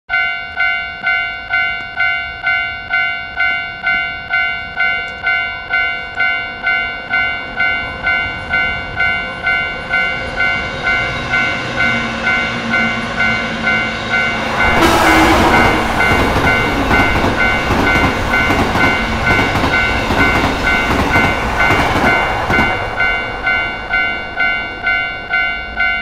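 Japanese railway crossing bell ringing in its steady kan-kan rhythm, a little over two strikes a second. About halfway through, an electric commuter train passes and its running noise swells over the bell for about eight seconds, then fades while the bell keeps ringing.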